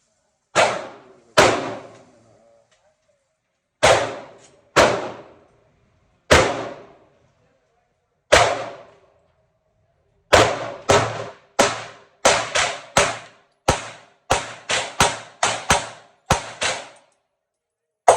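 Gunshots from a 9mm Glock 19X pistol fitted with a Strike Industries Mass Driver compensator. Six single shots come a second or more apart, then a quicker string of about a dozen shots in the second half. Each shot rings on in a short echo.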